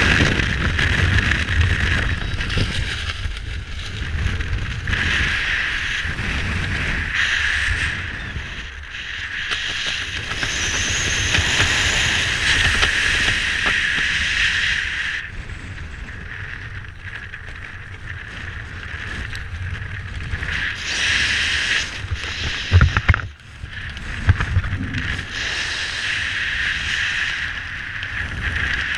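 Air rushing over the camera's microphone under an open parachute canopy, rising and falling in strength. A couple of sharp knocks about three quarters of the way through.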